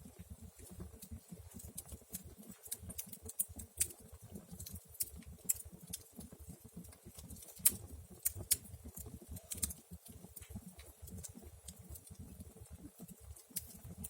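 Wood fire crackling in a fireplace: irregular sharp pops and snaps, a few louder than the rest, over a low fluttering rumble.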